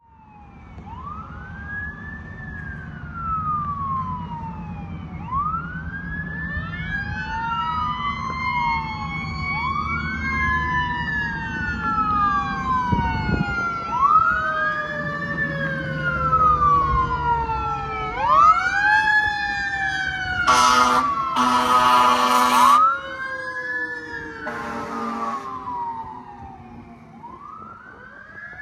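Pierce Impel pumper fire engine running on an emergency response, its siren wailing up and down every three to four seconds over a second, slower siren tone and a low engine rumble. About twenty seconds in come three air-horn blasts, the middle one the longest.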